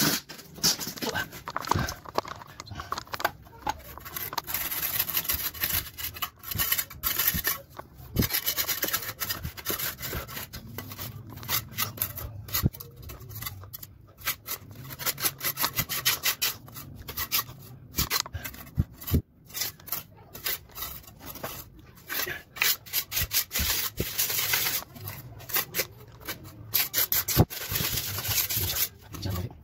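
Wooden plank being smoothed by hand: repeated rubbing and scraping strokes across the wood, in uneven runs with short pauses, taking off the excess until the board is smooth.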